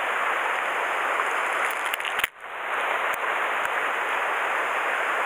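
Steady rush of a mountain river running over stones, with a brief dropout a little over two seconds in.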